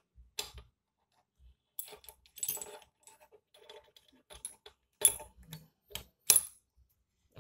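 Metal clicking and clinking as the gear forks, gears and shafts of a motorcycle gearbox are handled and fitted into the aluminium case: irregular sharp clicks, with a cluster about two and a half seconds in and two louder knocks around five and six seconds in.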